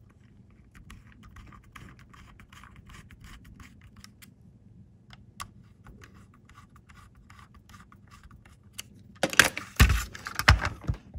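Small screwdriver turning screws into the plastic chassis of a model locomotive, with faint clicking and scratching. About nine seconds in come louder knocks and rumbling as the locomotive is picked up and handled close to the microphone.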